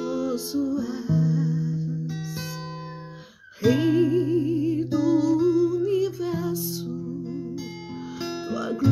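A woman singing with a wavering vibrato while strumming chords on an acoustic guitar. About three seconds in the sound briefly fades almost away, then guitar and voice come back in strongly.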